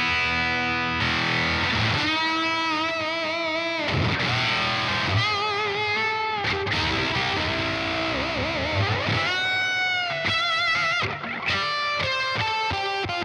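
Electric guitar played through an EarthQuaker Devices Bit Commander, an analog octave-synth pedal. It plays a single-note line, one note at a time, and several sustained notes waver in pitch with vibrato and bends.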